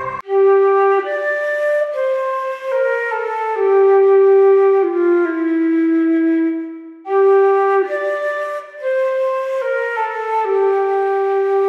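Background music: a slow single-line melody of held notes, stepping downward in two phrases, with a short break about seven seconds in.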